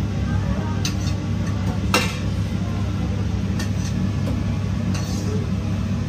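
A stainless-steel serving ladle scooping soup and clinking against the steel buffet tray and a ceramic bowl: one sharp clink about two seconds in, a lighter one before it, and a few lighter ones later. Under it runs a steady low hum.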